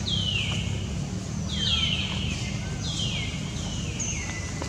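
A series of high, whistle-like animal calls, each sliding down in pitch over about half a second, repeating roughly once a second, over a steady low rumble.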